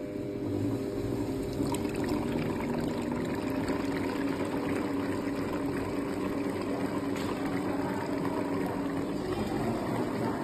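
Commercial stand mixer running steadily, its wire whisk beating a thin batter in the stainless steel bowl: a steady motor hum under the wet noise of the whisked liquid, getting louder about half a second in.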